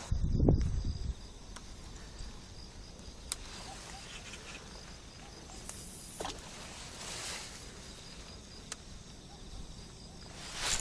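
Outdoor ambience with faint insects chirping in an even pulsing pattern. A low bump of handling or wind noise opens it, and a few soft clicks and two brief hisses come midway.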